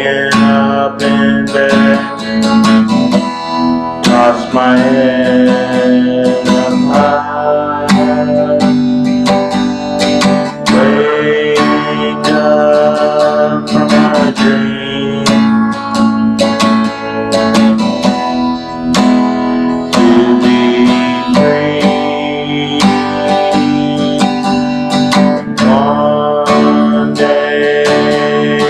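A man singing while strumming a steady rhythm on an acoustic guitar.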